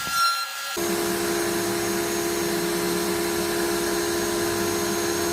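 Steady whine of a small electric power-tool motor running at constant speed, coming in abruptly about a second in.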